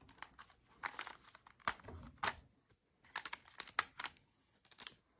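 Irregular clicks and rattles of a SimLim Easy Hair plastic automatic hair braider being handled and its parts fitted together, with a quicker run of small knocks in the second half.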